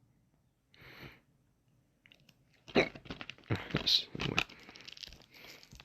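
Crinkling and crackling of plastic shrink wrap being pulled and torn off a DVD case: a faint rustle about a second in, then a dense run of sharp crackles from near the halfway point on.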